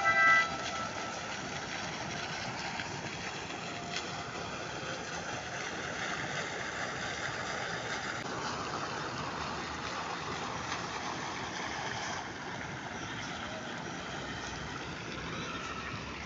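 Steady rushing splash of water from a jetting fountain, its character shifting slightly about halfway through and again a few seconds later.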